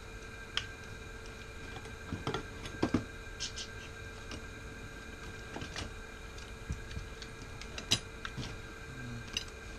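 Scattered clicks, taps and knocks of small objects being handled and moved about, over a steady electrical hum.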